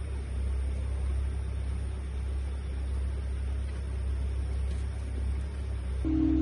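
Steady low outdoor rumble with a faint hiss, with no distinct events in it; music with held tones comes in right at the end.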